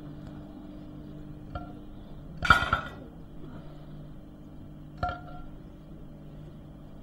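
A metal spoon clinking against a frying pan and a china plate while food is served onto the plate: a few short ringing clinks, the loudest cluster about two and a half seconds in and another about five seconds in, over a steady low hum.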